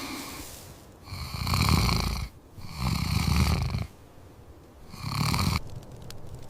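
Three heavy, rasping, snore-like breaths, the first two back to back and the third after a short pause.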